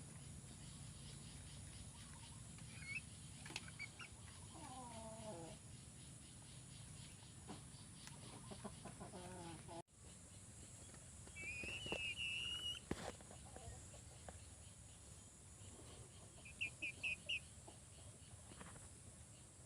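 Chicken calling softly: a few low, falling clucks in the first half, then higher chirping calls, with a quick run of about five short chirps near the end.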